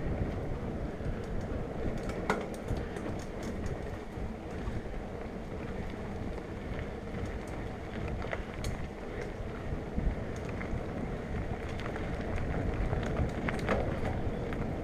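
Mountain bike riding along a dirt trail: steady wind noise on the microphone over tyre rumble, with scattered sharp clicks.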